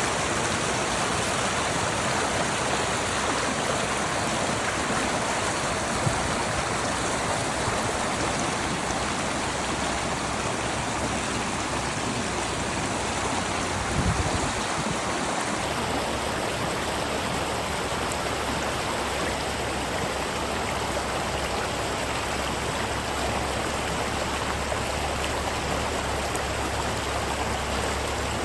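Running water of a forest stream: a steady, even rush. Its tone changes abruptly about halfway through, and there is a brief low bump just before.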